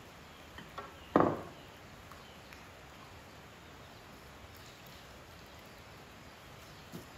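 A single sharp knock about a second in, with a few faint clicks around it, over a steady faint background hiss.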